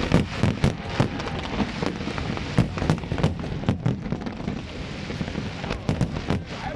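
Fireworks going off in a rapid, irregular string of sharp bangs and crackles over a steady background rumble.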